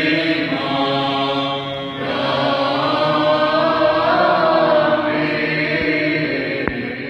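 Orthodox church choir chanting a hymn, many voices holding long notes that move slowly in pitch. A single sharp click sounds near the end.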